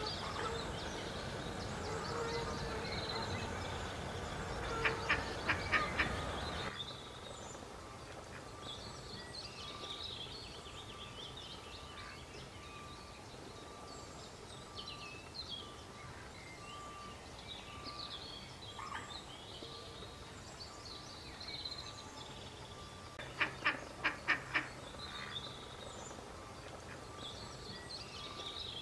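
A duck quacking in two quick runs of about four quacks each, one about five seconds in and another near the end, over a scatter of faint, high, thin chirps.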